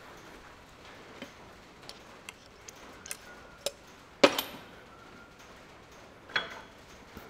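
Scattered sharp ticks and creaks from the sheet metal of a big tin shed. About four seconds in comes a louder metallic clank that rings briefly, and another comes about six and a half seconds in.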